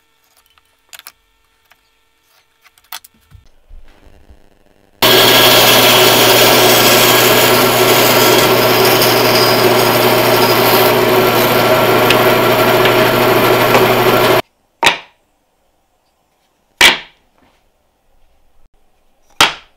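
Bandsaw running and cutting a slot into a wooden block: a loud, steady noisy sound over a low hum that cuts off suddenly past the middle. Then three sharp knocks, each as loud as the saw.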